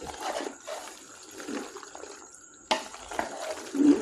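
Spoon stirring thick, creamy white sauce pasta in a pan: irregular wet squelching strokes, a sharper one about two-thirds of the way through and the loudest near the end.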